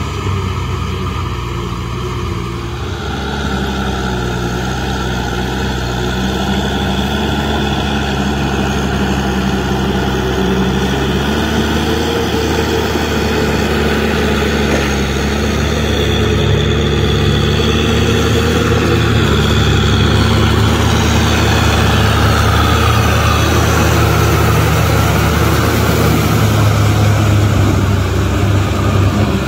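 Kubota M6040SU tractor's four-cylinder diesel engine running steadily under load as it pulls a rotary tiller through wet paddy mud. It grows gradually louder in the second half as the tractor comes close.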